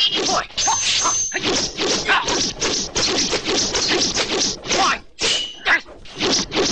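Kung fu film fight sound effects: a rapid string of dubbed punch and kick impacts, sharp whacks and thuds several a second, with a short break about five seconds in.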